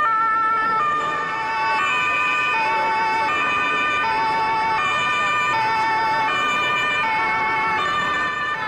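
Emergency-vehicle sirens sounding, a sustained two-tone pattern whose pitch steps up and down between several notes about every half second to second.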